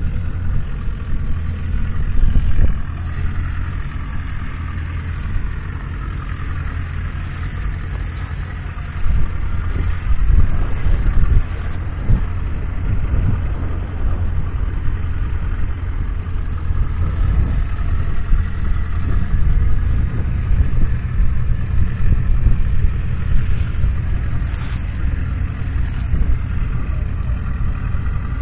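The Ford Roadless Ploughmaster 90's six-cylinder diesel engine running steadily, heard close up, its pitch drifting gently up and down; it gets louder for a few seconds about a third of the way in.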